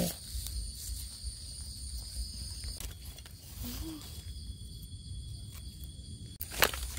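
Steady high-pitched insect chirring of the forest over a low rumble, with a faint short voice sound about four seconds in and one sharp click near the end.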